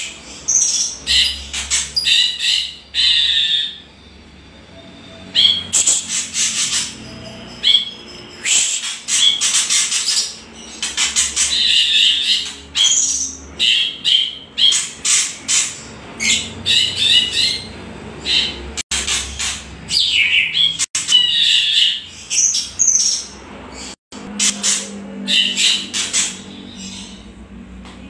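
White-rumped shama (murai batu) and greater green leafbird (cucak ijo) giving kretekan: harsh, rapid rattling chatter in short repeated bursts, the agitated call used to provoke other songbirds into answering.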